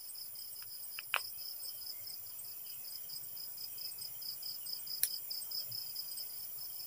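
Night insects, crickets, chirping in a steady, evenly pulsing high-pitched chorus, with two short clicks, one about a second in and one about five seconds in.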